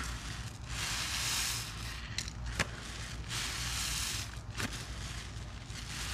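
A sponge full of foamy soap and baking-soda cleaning mix being squeezed by hand. Two long, hissing swishes of suds come about two and a half seconds apart, each followed by a sharp click.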